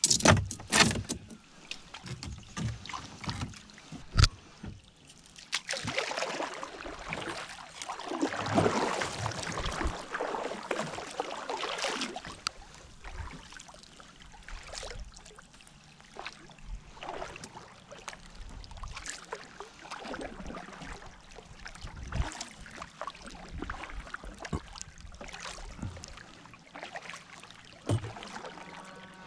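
Kayak paddle dipping and splashing through river water, with hard knocks near the start as oyster-covered rocks are dropped into a plastic bucket in the kayak.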